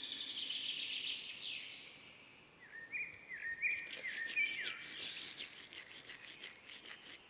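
A toothbrush scrubbing teeth: quick, faint rubbing strokes that start about halfway through. Birds call in the background, with a repeated chirping call in the first half.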